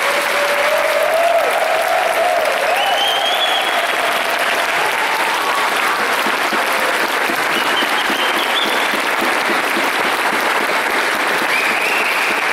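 Audience applauding: dense, steady clapping that holds at an even level throughout.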